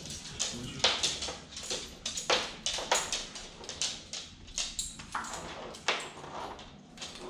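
Dog leashes being clipped onto collars: an irregular run of sharp metal clicks and clinks from the leash snaps and collar hardware.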